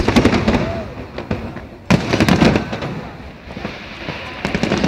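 Aerial firework shells bursting overhead, through a mobile phone's microphone. A sudden bang comes about two seconds in and a quick run of bangs near the end, each trailing off into crackling.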